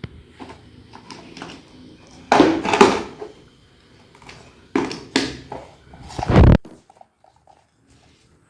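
Rustling and knocking of the fire alarm kit's box and parts being handled: three louder bursts of rustle, about two, five and six seconds in, the last cutting off abruptly.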